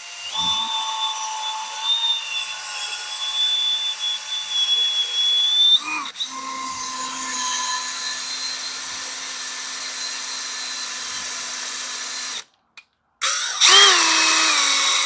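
Cordless drill spinning an engine valve chucked by its stem, with a green Scotch-Brite pad pressed against the valve head to scrub it clean. The motor whine drops to a lower pitch about six seconds in, stops about twelve seconds in, then spins up again just before the end.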